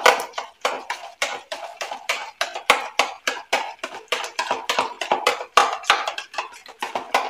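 A spoon beating curd in a plastic bowl, quick rhythmic strokes scraping and clicking against the bowl about three to four times a second. The curd is being whisked smooth to break up its lumps.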